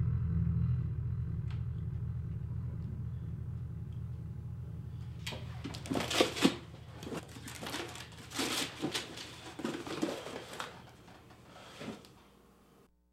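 A cardboard box sealed with packing tape being handled: an irregular run of rustling and scraping noises that starts about five seconds in and stops near the end. Under it a low steady hum fades away.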